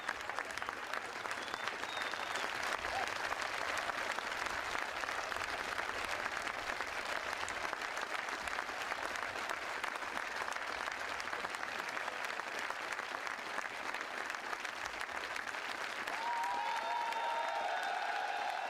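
Large grandstand crowd applauding steadily. Near the end a few held high notes rise above the clapping.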